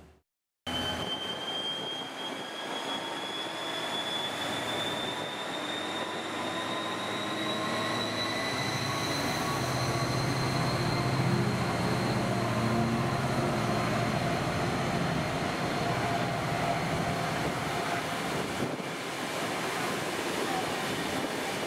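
DSB ME class diesel-electric locomotive, with its EMD two-stroke V16 engine, working hard as it passes with a double-deck train. A high whine rises steadily in pitch as the train gathers speed, and the engine's low note is loudest in the middle.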